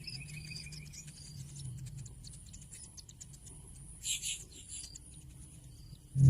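Faint high-pitched bird chirps and rapid ticking calls, with a brighter chirping burst about four seconds in, over a low steady hum.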